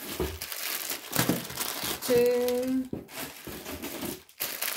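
Plastic instant-noodle packets crinkling as they are handled and counted. About halfway there is a brief steady held tone, the loudest sound.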